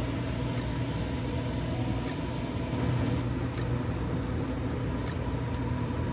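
A steady mechanical hum with a low drone from a stovetop kitchen setup. Under it, a honey-sesame sauce is stirred with a wooden spatula in a frying pan and comes up to a simmer.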